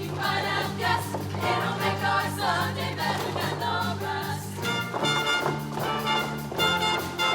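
Show choir singing with its live band accompaniment: many voices over a steady bass line, moving to longer held notes in the second half.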